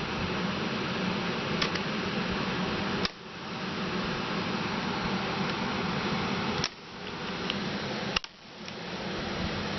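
Plastic laptop screen bezel being pried off, its clips snapping loose with sharp clicks about three seconds in, near seven seconds and again a second later, over a steady hiss of background noise.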